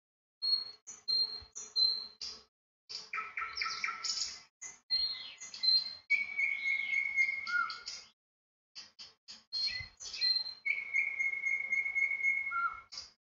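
Small birds chirping and twittering in quick series of short high notes, with two long held whistled notes, one about six seconds in and one about eleven seconds in.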